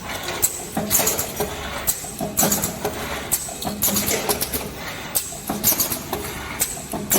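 Fully automatic star-frame welding machine cycling: short, sharp clattering bursts about once a second over a steady low hum.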